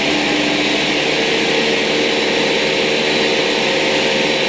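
Electric countertop blender running steadily at medium speed, whirring as it blends four raw whole eggs.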